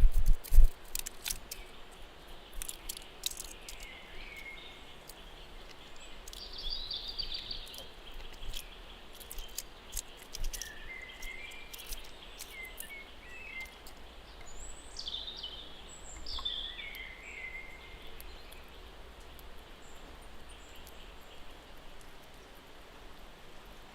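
Outdoor ambience with birds chirping in short calls that glide up and down, most of them in the middle of the stretch. A couple of low bumps open it, and sharp clicks come and go in the first few seconds.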